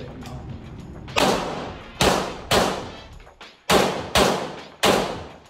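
Six pistol shots fired in an indoor range, each ringing off the walls. The first comes just over a second in, then the rest follow mostly in quick pairs.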